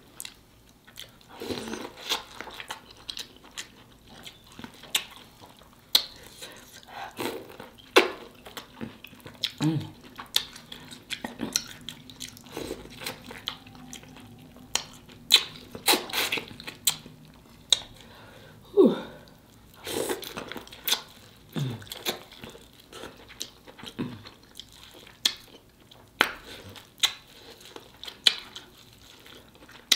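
Close-miked eating sounds: wet smacking, slurping and chewing of sauce-covered corn on the cob and seafood, with many sharp mouth clicks spread throughout.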